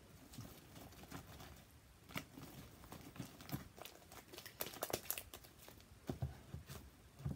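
Sticky homemade slime, with soap mixed in to make it stickier, being stretched, pulled apart and folded by hand: quiet, irregular sticky snaps, clicks and crackles.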